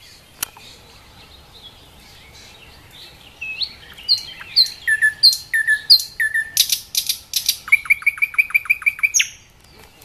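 A small songbird singing one varied phrase: about five falling two-part whistled notes, a brief rapid rattle, then a fast run of about ten short falling notes, closing on one higher note. A single sharp tick sounds just under half a second in.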